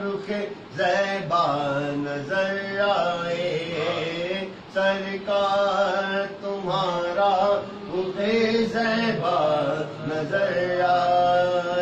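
Voices chanting a naat, an Urdu devotional poem in praise of the Prophet, in long, wavering melodic lines.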